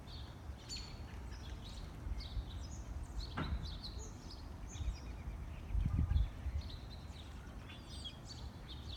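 Small birds chirping and twittering with short, high calls scattered throughout, over a low outdoor rumble that swells briefly about six seconds in.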